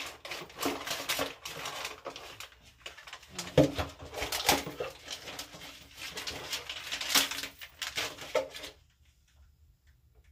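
Packets of sheet face masks rustling and crinkling as they are handled and sorted, in irregular crackles that stop shortly before the end.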